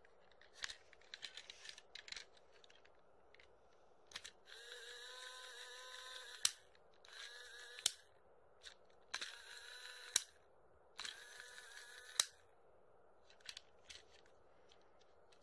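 Small battery motor and gears of a toy train car whirring in four short runs, each ending in a sharp click as the power switch is flicked off; light plastic clicks from handling the car come before the first run.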